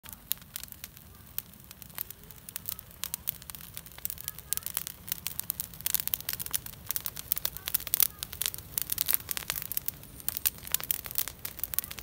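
Brushwood fire of conifer branches crackling and popping. The pops come thicker and louder from about six seconds in.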